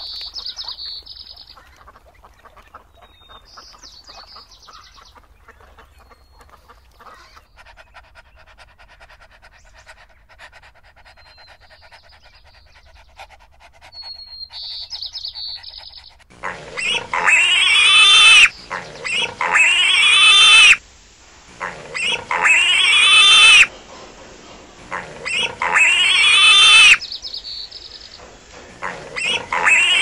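A few faint, short, high chirps over quiet background, then, from about halfway through, piglets squealing loudly: long drawn-out squeals, one every two to three seconds.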